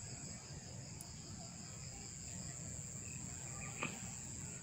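Steady high-pitched insect chorus over a low background rumble, with one faint click near the end.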